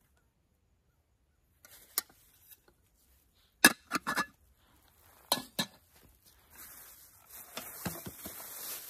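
Metal lid being fitted onto a small camping cook pot: a few sharp clinks and clanks, the loudest one a little over halfway through. Near the end a plastic bag rustles and crinkles.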